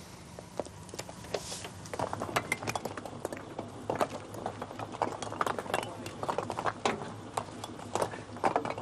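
Irregular clinking and clattering of metal and glass debris as rescue workers dig through a wrecked hut, sparse at first and thick from about two seconds in.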